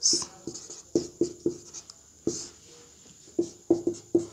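Marker pen writing on a whiteboard: a string of about ten short, unevenly spaced strokes, each with a brief pitched squeak.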